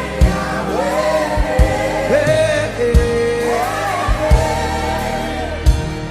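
Gospel worship music: voices singing long, gliding melodic lines over a band, with a deep drum beat about every second and a half.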